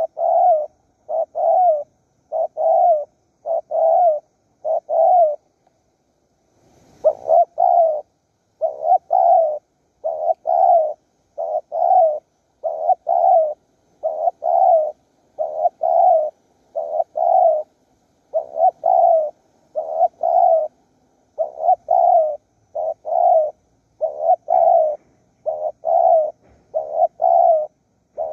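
Spotted dove cooing: short low coos repeating steadily in close groups, with a brief pause about six seconds in and a short rustle just after.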